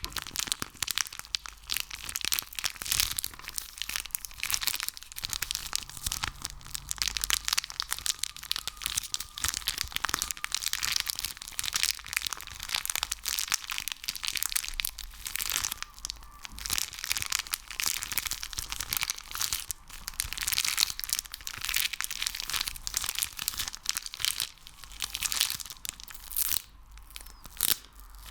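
Sticky ASMR material being squeezed and pulled apart by hand close to the microphone: a dense, continuous stream of crackling, popping clicks.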